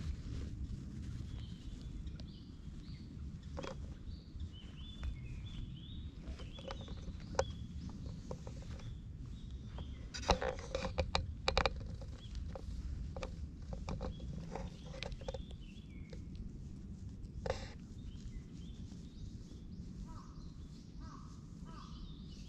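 Small birds chirping in the background over a steady low rumble, with scattered clicks and rustles of handling close to the microphone, thickest around ten to twelve seconds in. A few short, lower repeated calls come near the end.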